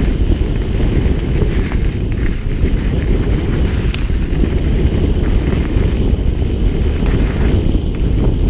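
Wind buffeting a handlebar-mounted GoPro's microphone on a fast mountain-bike descent. It is mixed with a steady low rumble of tyres on gravel and dirt single-track, and now and then a small click or rattle from the bike.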